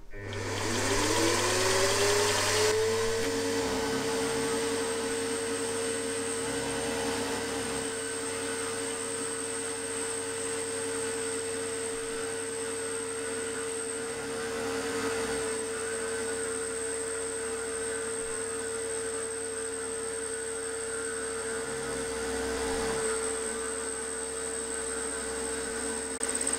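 Milling machine spindle starting up, its motor whine rising in pitch over the first two seconds or so. It then runs at a steady pitch while an end mill cuts a groove in aluminium plate on the final 1 mm-deep pass.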